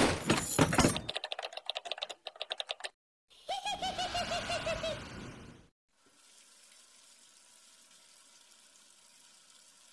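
Cartoon title-card sound effects: a sudden loud hit, then a rapid rattle of sharp clicks for about two seconds, then after a short gap a pitched, wavering voice-like sound for about two seconds. Faint steady hiss for the last four seconds.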